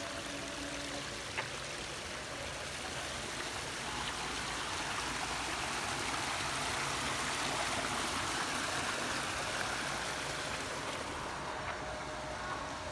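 Water running down a small artificial rock cascade into a pond, a steady splashing rush that grows louder toward the middle and eases near the end.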